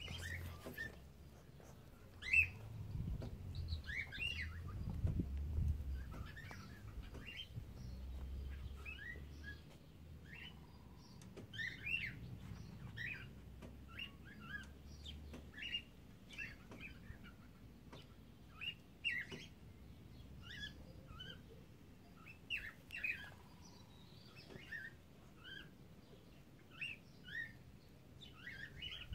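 Cockatiels chirping: short, high calls one after another, a few each second, with a low rumble underneath that fades out about halfway through.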